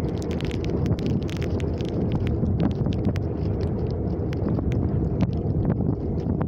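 Car running at road speed, heard from inside the cabin: a steady low rumble of engine and tyres on asphalt, with frequent small clicks or rattles on top.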